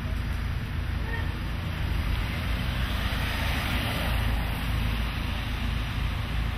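Street traffic: cars passing close by on wet asphalt, their tyre hiss swelling and fading around the middle, over a steady low rumble.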